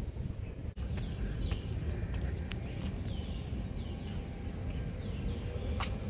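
Wind buffeting the microphone with a low rumble, and a bird singing: short, high chirps that fall in pitch, repeated about twice a second from about a second in.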